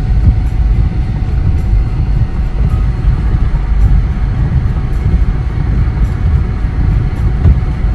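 Steady low rumble of a car driving on a snow-covered road on snow tires, heard from inside the cabin.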